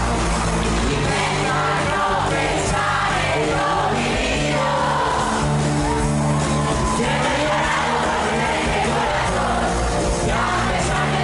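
Live pop-rock band playing loudly through a large PA with sung vocals, the audience yelling and singing along close to the microphone.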